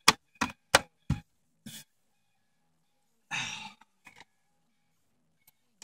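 Several short, sharp sounds in quick succession, then a person's breathy exhale about three seconds in.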